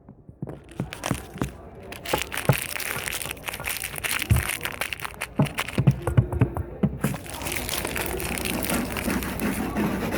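Slime being squeezed and handled, with dense crackling and crunching pops.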